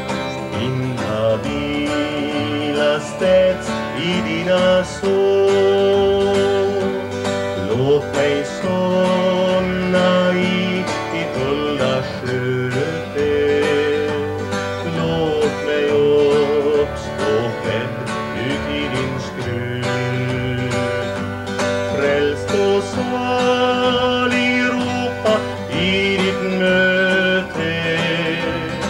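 A man singing a song while strumming a steel-string acoustic guitar.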